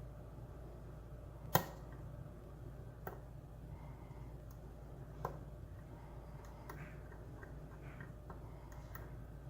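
Small metallic clicks and ticks of a pick and tension tool working inside a vintage Ilco padlock: one sharp click about one and a half seconds in, then a few fainter ticks.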